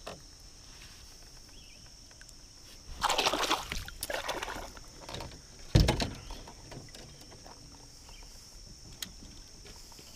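Pond water splashing and sloshing in a few short bursts about three to four seconds in, then a sharper, louder splash near the middle. A steady high insect chirr runs underneath.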